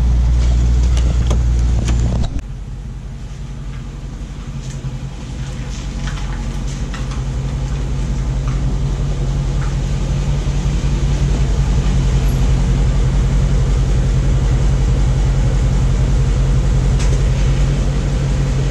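Dodge HEMI V8 idling with a steady low rumble. About two seconds in the level drops sharply, then it slowly builds back and holds steady.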